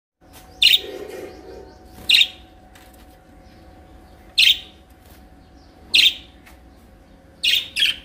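Budgerigars calling in an aviary: six sharp, high chirps spaced a second or two apart, the last two close together, over soft twittering.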